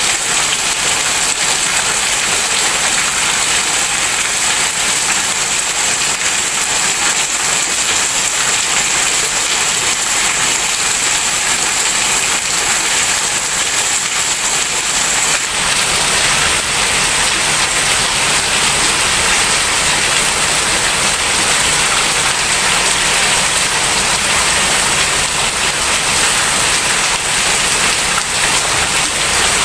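Heavy rain falling steadily as a dense, even hiss. About halfway through, the sound shifts: the top gets a little duller and a low rumble fills in.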